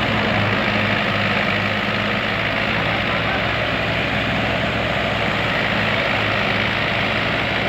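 Wheat thresher and its engine running steadily: a constant low engine hum under a dense whir.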